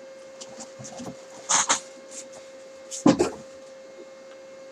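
Two short handling noises of a packaging box being moved and opened, about one and a half and three seconds in, over a steady background hum.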